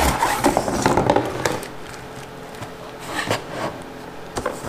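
Cardboard packaging and plastic wrap rustling and scraping as parts are lifted out of a box, busiest in the first second and a half, then quieter with a few light knocks.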